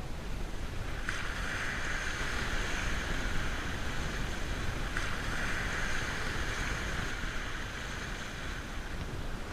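Steady outdoor noise of wind and surf, a low rumble under a hiss that swells about a second in.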